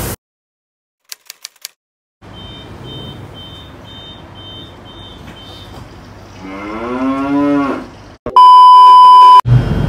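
Inside a commuter train carriage, a row of quick electronic beeps, about two a second, over the steady cabin noise; then a mooing call rising in pitch for about a second, followed near the end by a loud, steady bleep tone lasting about a second.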